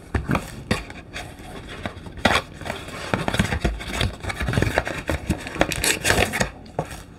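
Cardboard packaging boxes being handled and opened by hand: irregular knocks, scrapes and rubbing of cardboard.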